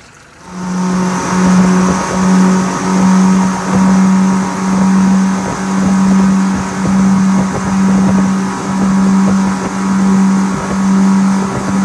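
Twin Yamaha 115 hp outboard motors running at high speed with a steady droning tone, pushing the boat hard through the water. The drone swells and fades evenly about once a second, over a hiss of wind and spray. It starts abruptly about half a second in.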